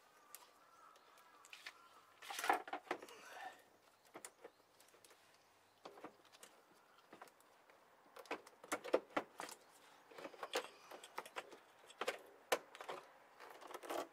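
Faint, irregular clicks and clinks of hand tools and metal parts while the air cleaner case is unscrewed from a Yamaha Axis 90 scooter. There is a short cluster about two seconds in and a denser run of clicks from the middle to the end.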